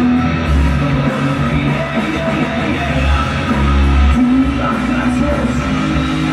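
Live rock band playing, with electric guitars, bass and drums, and a singer's voice over the top.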